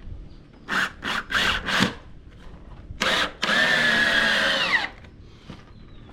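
Power drill run in four short trigger bursts, then a short burst and a longer steady run whose pitch drops just before it stops.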